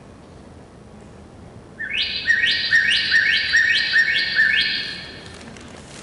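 Recorded bird song played through a Fitbit's small speaker held up to a microphone: a run of six quick, evenly repeated notes, each a sharp rising sweep, starting about two seconds in.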